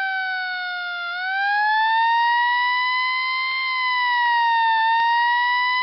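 A wailing siren: one steady pitched wail that dips about a second in, then rises again and holds with slow, slight wavers.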